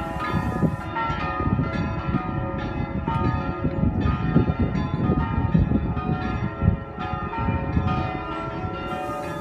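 Tower bells of a church carillon ringing out a tune, with a new bell note struck every half second or so and the notes ringing on over one another. A low rumble runs underneath.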